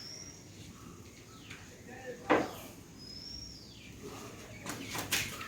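Quiet background with a bird giving two short, high whistled calls, a single short knock about two seconds in, and faint voices near the end.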